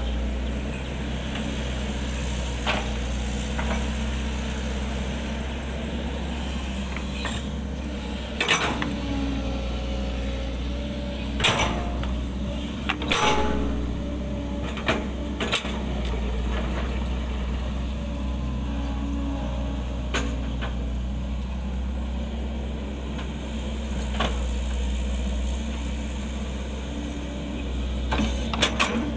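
Kobelco SK135SR excavator's diesel engine running steadily under load as it digs and spreads soil, with scattered sharp knocks of the bucket and rocks, several of them close together in the middle.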